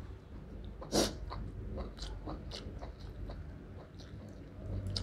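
Close chewing of a mouthful of food: wet mouth clicks and smacks, with one sharper smack about a second in.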